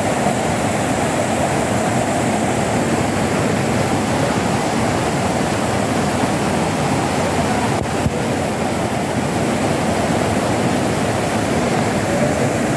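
Floodwater rushing across a railway track and pouring off the down line in a loud, steady torrent; it is hill runoff that has washed the ballast out from under the track.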